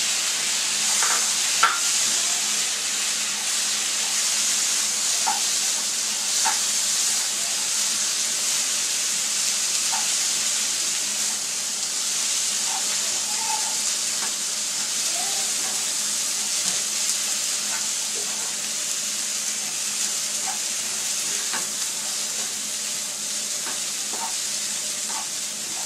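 Freshly added chopped tomatoes frying with onions and peanuts in hot oil in a nonstick pan, making a steady sizzle, stirred with a slotted spoon that scrapes and taps the pan now and then.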